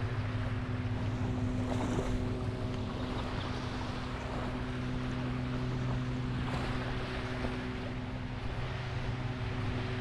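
An engine running steadily at one unchanging pitch, over the wash of surf and wind.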